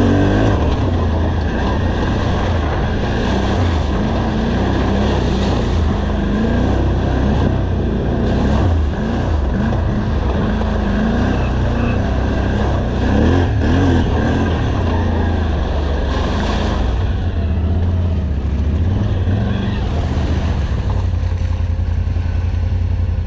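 ATV engine running while riding, its revs rising and falling again and again with the throttle, then running more evenly near the end.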